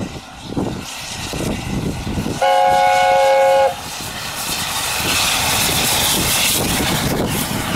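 LNER Class A4 steam locomotive 4464 Bittern sounding its chime whistle once, a steady chord lasting about a second. It rings out over the rush of the engine working past at speed, and the rush grows louder in the last few seconds as the locomotive draws level, with wind on the microphone.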